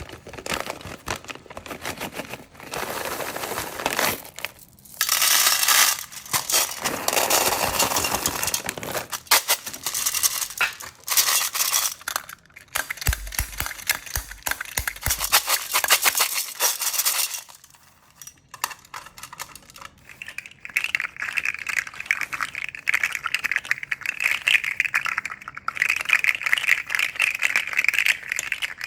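Crinkly plastic candy packaging being crumpled and torn open in irregular bursts. In the last third a steadier, higher-pitched rattle takes over.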